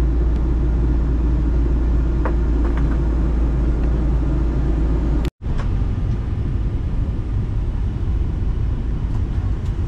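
Jet airliner cabin noise in cruise: a loud, steady drone of the engines and the air rushing past the fuselage, heavy in the low end. It drops out for an instant about five seconds in and resumes a little less deep.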